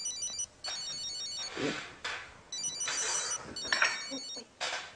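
Telephone ringing with a high, trilling electronic ring in pairs of short rings. Louder bursts of noise come between the rings.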